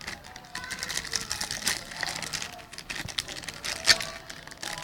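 Packaging crinkling and rustling as it is handled, with scattered light clicks and one sharper tap about four seconds in.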